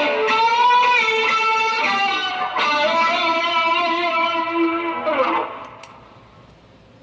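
Electric guitar played through a pedalboard of effects: a short phrase of held, ringing lead notes with a bend up near the start, stopping about five and a half seconds in.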